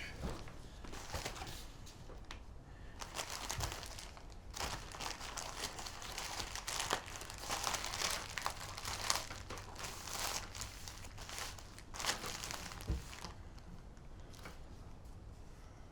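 Packaging being handled and crinkling, in irregular bursts from about three seconds in until near the end, when it stops.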